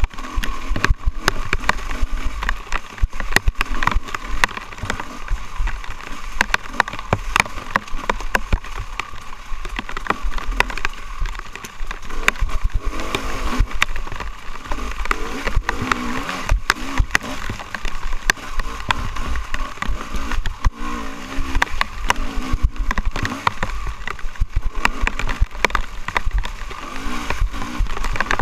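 Off-road dirt bike engine running with the throttle varying as the bike is ridden over a rough, wet woodland trail. Deep wind rumble and frequent knocks from the bumps sound on the on-board microphone.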